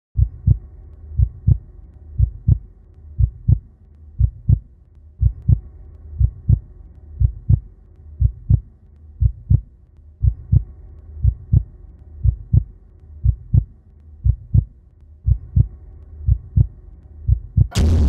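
Heartbeat sound effect: a double thump about once a second over a faint low hum. Near the end a loud electronic music track comes in.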